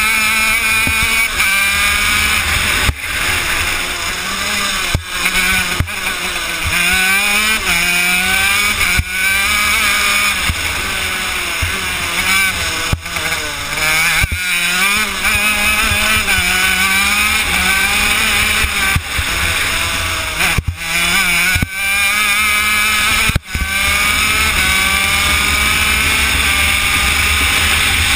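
Honda CR80 two-stroke single-cylinder shifter kart engine heard from on board, revving up and down in pitch through the gears and corners, with several brief momentary drops in the engine sound.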